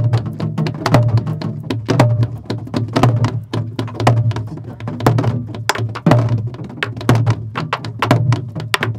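Korean sori-buk (pansori barrel drum) beaten in a simple fast pattern for the hwimori rhythm. A deep palm stroke on the drumhead lands about once a second, with quick, dry stick strokes on the wooden shell and head in between.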